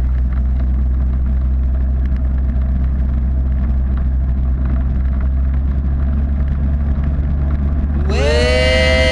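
Pioneer Flightstar ultralight's engine and propeller droning steadily in flight, with a rushing haze of air noise. About eight seconds in, a musical note glides up and holds.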